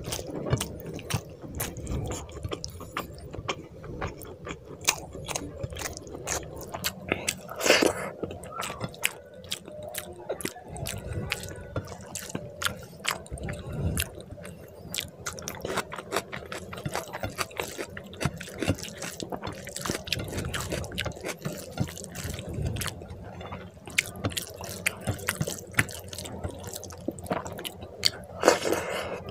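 Close-miked eating sounds: rice and egg curry gravy squished together by hand and chewed by mouthful, a steady run of small wet clicks and squelches, with louder moments about eight seconds in and near the end.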